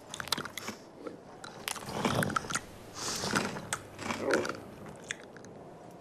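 Crunching, crackling sound effect: a quick run of small clicks, with louder crunches about two, three and four seconds in.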